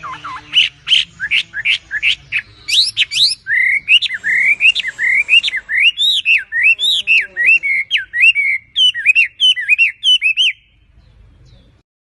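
Chinese hwamei (melodious laughingthrush) singing loudly. It starts with a quick run of short rising notes, then goes into a long, varied phrase of clear whistled notes sweeping up and down, and stops near the end.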